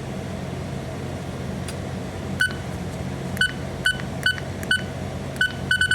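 BNWAS (Bridge Navigational Watch Alarm System) control panel key beeps: about eight short, high beeps from about two and a half seconds in, coming quicker near the end, as buttons are pressed to step through the settings menu. A steady low hum runs underneath.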